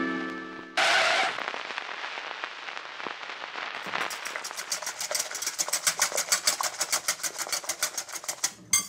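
A short noisy whoosh about a second in, then crackling that settles into fast, even clicking: a fork beating eggs in a glass bowl for an omelette.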